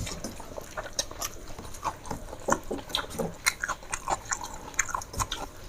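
Close-up mouth sounds of a person eating rice and chicken curry: chewing with wet smacks and small clicks, coming irregularly.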